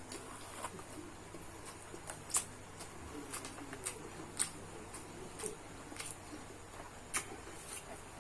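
Close-miked eating sounds from chewing fried rice: scattered soft clicks and smacks at irregular intervals.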